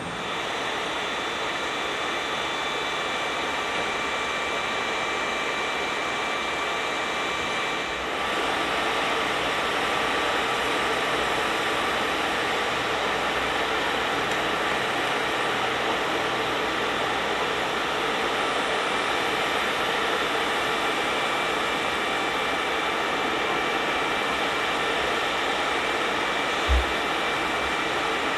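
Aircraft engines running steadily: a constant rushing noise with a high whine, growing slightly louder about eight seconds in. A brief low thump near the end.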